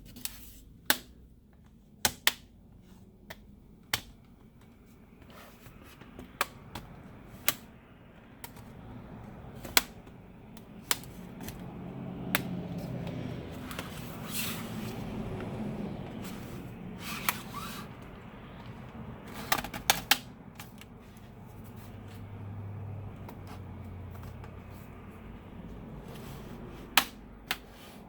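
Plastic clips of an HP Stream laptop's bottom cover clicking loose one after another as a spudger is worked around the seam, with the tool scraping along the plastic in the middle.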